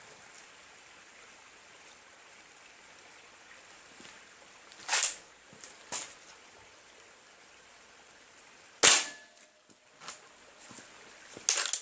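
Gamo Whisper Cat break-barrel air rifle firing two sharp pellet shots, about five and nine seconds in, the second the loudest. Fainter clicks fall between them, and there is another sharp click near the end.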